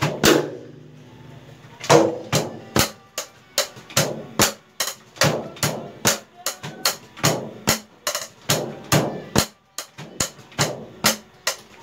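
Unamplified acoustic noise of a DIY electronic drum kit played with sticks: sharp stick hits on the pads and shells, some followed by brief drum ringing. The hits come in an uneven beat of about two to three a second, after a short pause near the start.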